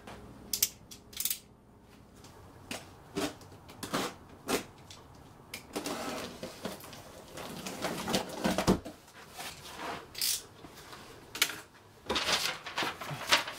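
Large cardboard shipping box being opened by hand: a run of sharp taps, scrapes and cardboard rustling as the top flaps are pulled apart and the contents handled, with longer rustling stretches about halfway through and near the end.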